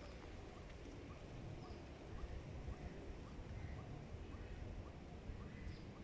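Quiet outdoor background: a low rumble with a faint, even ticking of about four soft ticks a second, fading out near the end.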